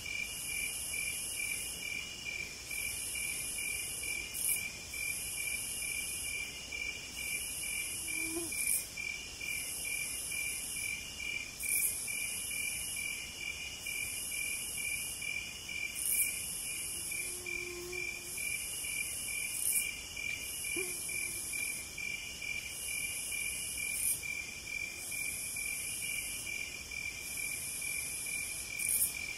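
Evening insect chorus: a steady, fast-pulsed trill, with a higher buzzing that comes in phrases of about a second and a half and repeats every two seconds or so. A sharp tick sounds every three to five seconds.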